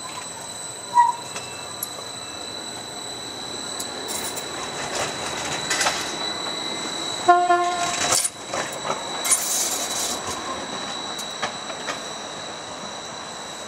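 Bombardier Flexity low-floor tram rolling past on a curve, with a steady high whine over the running noise and a few rail clicks. About seven seconds in there is a short pitched signal tone, lasting under a second.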